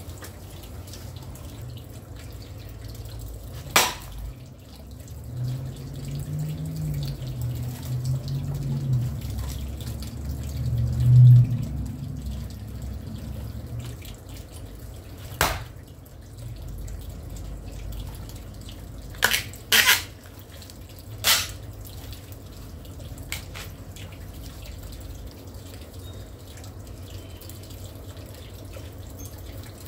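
Splitting axe chopping a round of firewood: four sharp knocks in the second half, two of them close together. Earlier there is one knock, and a low rumble swells and fades.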